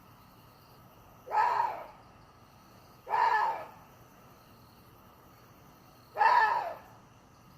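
Water deer calling: three short, harsh screams, each about half a second long and falling in pitch, spaced a couple of seconds apart.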